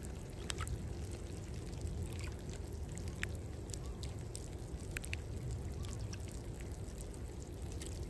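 Water trickling and dripping: a steady low hiss with scattered light ticks.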